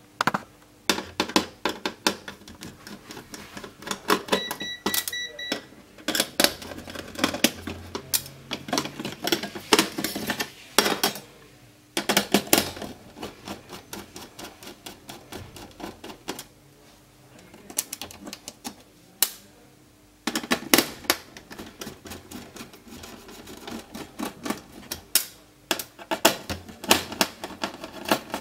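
Screwdriver turning out the screws that hold a TV's circuit board to its sheet-metal chassis: quick runs of clicks and scrapes of the tip in the screw heads and metal, in bursts with two pauses.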